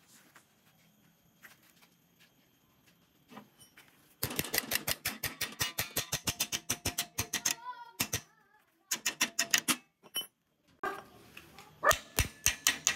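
Hammer blows on a steel flat bar held in a bench vise, bending it over the vise jaw. After a few seconds of quiet with light clicks, a fast run of metallic strikes, about seven a second, then several shorter runs of blows after brief pauses.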